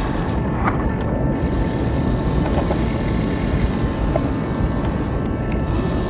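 Remote-control toy excavator's small electric motors and plastic gears whirring as its boom swings a bucket of sand, with a few small clicks, over a steady low rumble.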